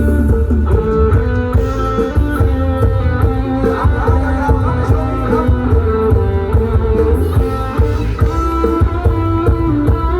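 Band music led by guitar over a strong bass and a steady beat, with no singing.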